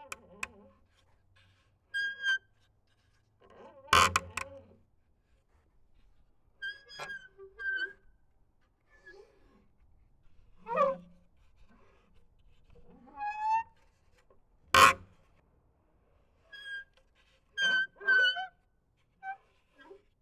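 Wooden planks creaking and squeaking under strain: about a dozen short pitched squeaks and creaks, some sliding upward in pitch. Two sharp, loud cracks of the wood come about four and fifteen seconds in.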